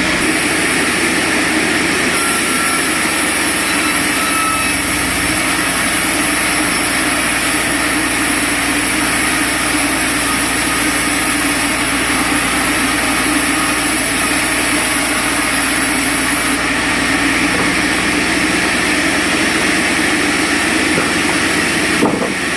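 Sawmill machinery running steadily, a constant engine-like drone with a loud hiss over it.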